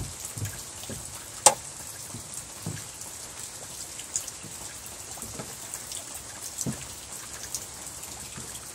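Steady rain falling and pattering on surfaces around a wooden porch, with scattered drips. A few soft knocks and one sharp click about a second and a half in.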